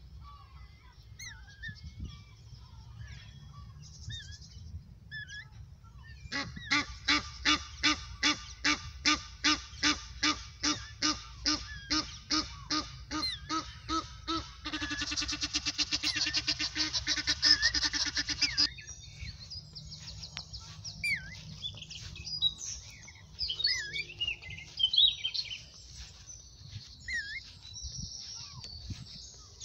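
A goose honking in a steady series of about two loud calls a second, which breaks into a faster, denser run of calls before stopping. Small songbirds chirp around it, and their chirping carries on after the honking ends.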